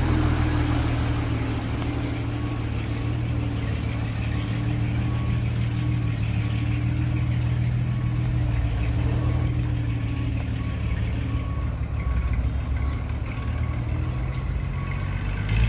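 Heavy diesel engine of earthmoving machinery running steadily, with a faint beep that repeats evenly through most of the stretch.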